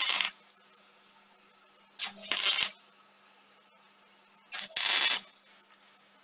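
MIG welder laying short welds on a steel frame: three brief bursts of arc sizzle, one right at the start, one about two and a half seconds in and one about five seconds in. Each opens with a short crack as the arc strikes.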